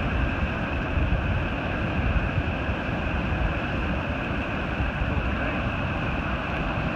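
Steady roar of surf breaking on the shore, with wind rumbling on the microphone.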